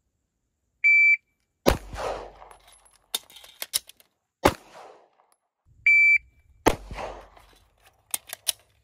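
Electronic shot timer beeps, followed by a pistol shot, a few quick clicks and a second shot. The timer then beeps again and another shot follows, with a quick run of clicks near the end, the pattern of a timed shoot–reload–shoot drill.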